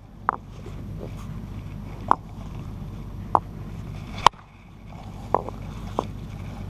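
Hard-hammer percussion: a quartzite-like river-cobble hammerstone striking a siltcrete cobble about six times, sharp stone-on-stone knocks roughly a second apart, as the knapper tries to detach a first flake from its acute-angled platform. A steady low rumble runs underneath.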